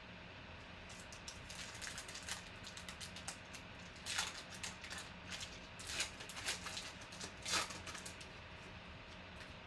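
Foil wrapper of a Panini Mosaic basketball card pack crinkling and tearing as it is ripped open by hand and peeled off the cards, in irregular crackles with the loudest tears about four, six and seven and a half seconds in.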